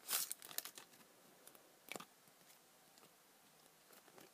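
Foil wrapper of a Pokémon booster pack being torn open by hand, a run of crinkling and tearing in the first second and one more short crinkle about two seconds in.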